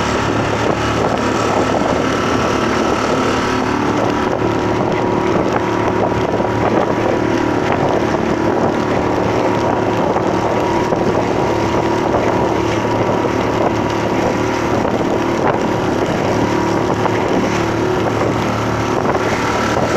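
Outboard motor of a small metal motorboat running steadily at speed through choppy water, with water splashing against the hull and wind buffeting the microphone.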